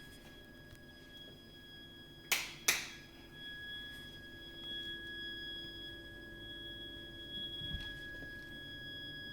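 Heat interface unit (HIU) and heating pipework giving off a continuous high-pitched shriek, a steady whistle-like tone with a higher overtone above it: the abnormal plumbing noise that runs for hours even when heating and hot water are not in use. Two sharp clicks come close together a little over two seconds in.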